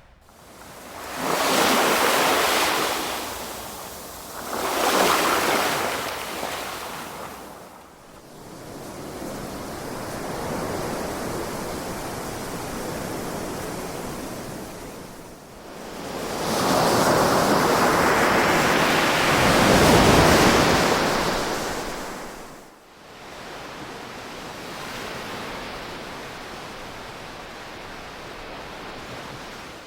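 Ocean waves breaking and washing ashore: two surges in the first few seconds, a steadier wash after them, then a longer, louder surge from about the middle, easing back to a gentle wash near the end.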